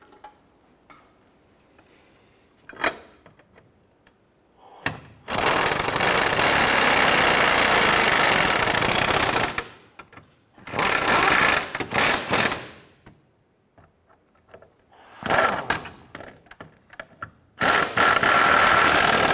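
Impact wrench running down the trailing arm bracket mounting bolts: one long run of about four seconds, then three shorter runs of about two seconds each, with a few clicks of the socket going onto the bolts before them.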